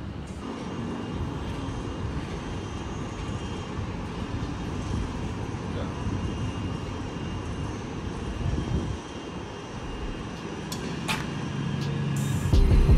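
Steady low rumble of city traffic far below a high balcony, with music coming in near the end.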